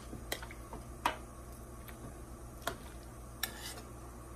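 A long spoon stirring cabbage and greens in a pot of hot water and knocking against the enamel pot a few times, the loudest knock about a second in. A short noisy scrape comes near the end.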